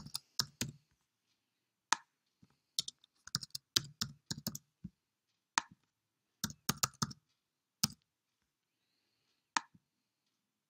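Typing on a computer keyboard in short bursts of keystrokes, with single clicks between the bursts and one last mouse click near the end.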